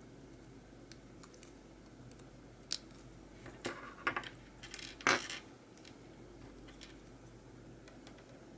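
A handful of light, sharp clicks and clinks of small hard parts being handled, as with keyboard switches and their housings, clustered in the middle with the loudest about five seconds in.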